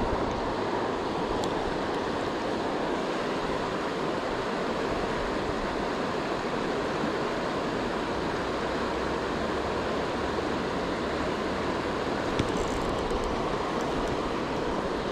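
Steady rush of a fast-flowing river running over riffles.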